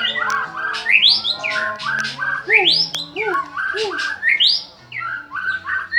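White-rumped shama (murai batu) singing a loud, varied song: whistled notes, fast trilled runs and rising sweeping whistles, with a rising sweep coming about every second.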